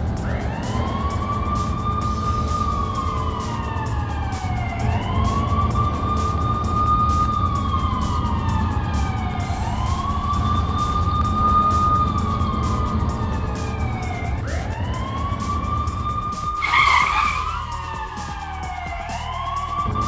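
Police car siren wailing in slow repeating cycles, each rising quickly, holding high, then sliding down, over a steady low engine rumble. A short loud burst of noise breaks in about three seconds before the end.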